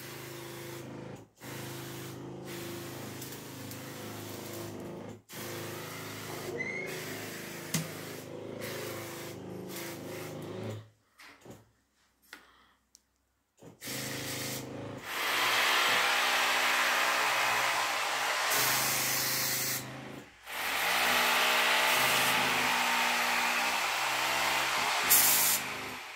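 Motorized pesticide sprayer pump running with a steady hum while termite-treatment chemical hisses out of the long spray lance. The sound drops away for a few seconds midway. The spray hiss is much louder in the second half, with brief breaks.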